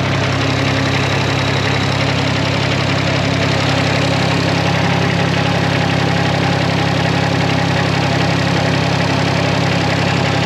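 Kubota diesel engine of an HY680C mini skid steer running steadily at idle, a constant low drone that does not change.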